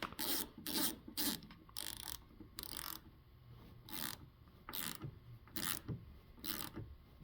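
A screwdriver tightening small screws in a car door lock cylinder, giving a series of short ratcheting clicks about one to two a second that space out toward the end.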